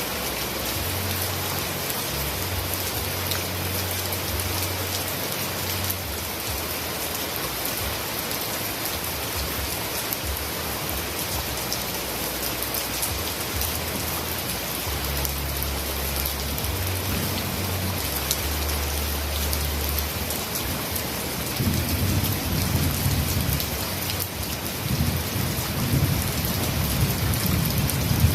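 Heavy rain falling steadily, an even hiss of drops on surfaces. About three quarters of the way through, an irregular low rumble comes in and grows louder toward the end.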